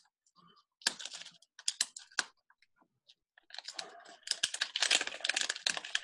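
Hands rummaging among small hard items on a table: a run of sharp clicks, then a denser clatter and rustle from about halfway through.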